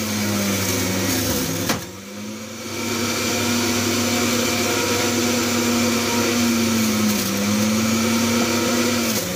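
Electric blender motor running steadily with a whine, blending apple, tomato, celery, ginger and lemon into a smoothie; after a click about two seconds in it eases off for about a second, then picks up again, its pitch sagging briefly twice near the end as the load shifts.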